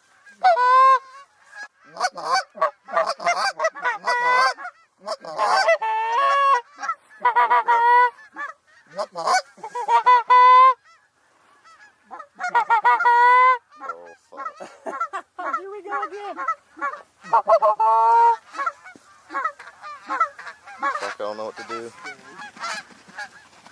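Canada geese honking and clucking in loud, rapid runs of calls, with a brief lull partway through and fainter calls near the end: geese committing to the decoy spread.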